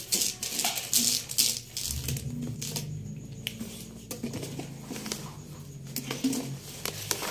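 Gift-wrapping paper rustling and crinkling in a string of quick, irregular rustles as a roll of it is handled and unrolled.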